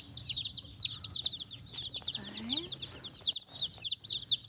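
Day-old Welsummer chicks peeping nonstop: a dense chorus of high, overlapping peeps from a box of chicks and a brooder full of them.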